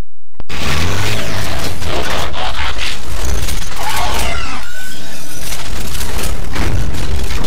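Sound effect of a robot transforming into a car: a dense run of mechanical clanks, clicks and whirring that starts suddenly about half a second in.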